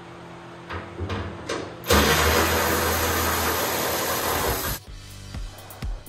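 Impact wrench run in one loud burst of about three seconds, loosening a fender bolt, after a few clicks of the tool going onto the bolt; it cuts off suddenly. Background music with a steady beat follows.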